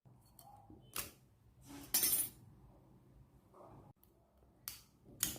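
Small metal clicks and a short scrape as the metal shield plate is pried off a phone's main board. There are a few separate sharp clicks, and the loudest sound is a brief scrape about two seconds in.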